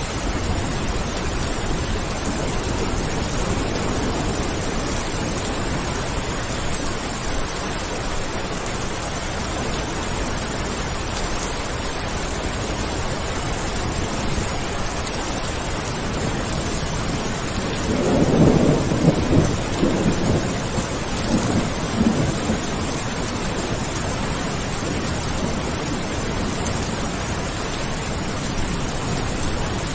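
Steady rain falling, with a roll of thunder about two-thirds of the way through that rumbles in several swells for a few seconds before fading back under the rain.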